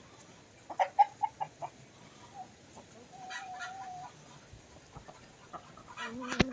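Chickens clucking: a quick run of short clucks about a second in, then a longer held note, with a sharp knock and another call near the end.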